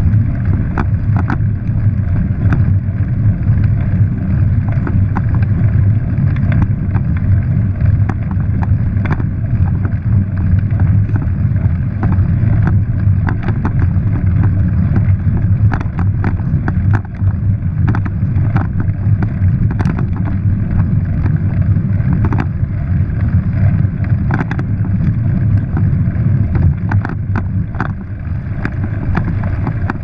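Wind buffeting a handlebar or helmet camera's microphone and bicycle tyres rumbling over a rough dirt track, with frequent irregular knocks and rattles as the bike jolts over bumps.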